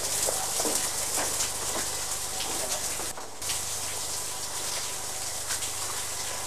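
Water being sprayed down, a steady rushing hiss that breaks off briefly about three seconds in.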